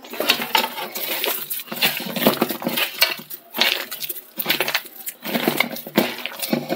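Sliced onions being mixed by hand into thick ground dal paste in a metal pot. Irregular strokes come a few times a second, with the pot scraping and clinking.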